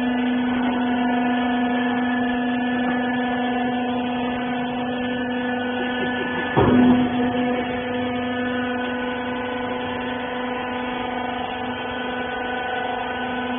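Hydraulic baling press running with a steady hum from its motor and pump, broken by one short knock about halfway through.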